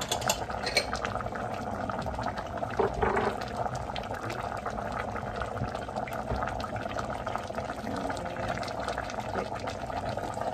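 Pot of vegetable stew in tomato sauce simmering over medium heat: a steady bubbling with many small pops.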